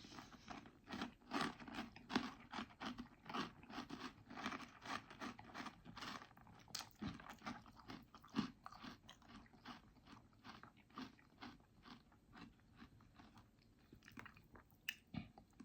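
Someone chewing a mouthful of crunchy chocolate breakfast cereal in milk: a steady run of crisp crunches, a few a second, thinning out near the end.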